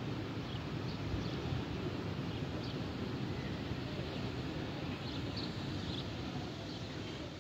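Steady low outdoor background rumble, with short high bird chirps every second or so.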